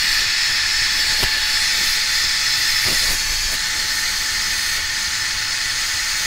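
Philips Thermo Protect hair dryer running steadily, blowing into hair: a constant rush of air with a faint steady whine.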